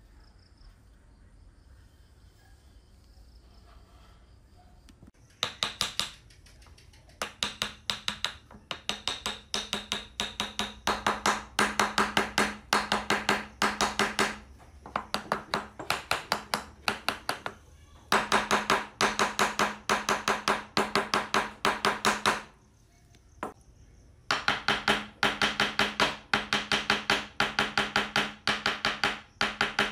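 A hammer tapping a wooden board rapidly, several light blows a second, to knock a hand-cut hidden dovetail joint together. The tapping starts about five seconds in and comes in runs of several seconds with short pauses, each blow ringing slightly.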